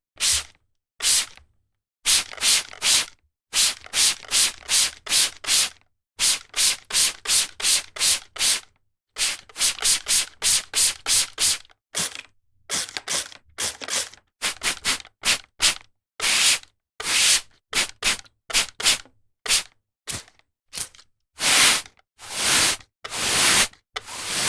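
Squirt bottle spraying in quick repeated squirts: short hissing bursts in runs of several with brief pauses between runs, the last few squirts a little longer.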